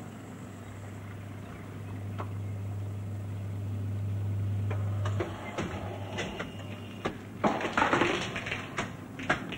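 A steady low mechanical hum that grows louder and cuts off about five seconds in, followed by a run of clatters and knocks.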